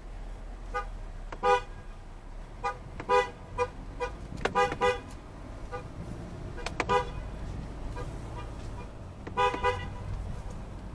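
A parked car's horn honking again and again in short, irregularly spaced toots, some in quick pairs, heard from inside a car over a low steady hum.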